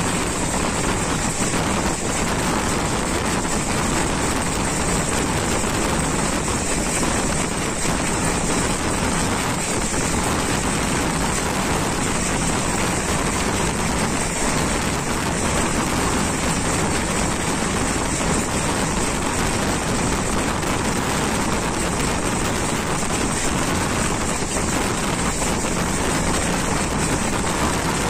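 Steady rushing noise of a moving train heard from inside the coach: wheels running on the rails together with wind, even and unbroken, with no distinct clickety-clack standing out.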